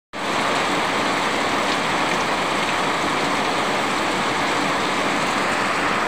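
Heavy rain pouring steadily, an even continuous hiss.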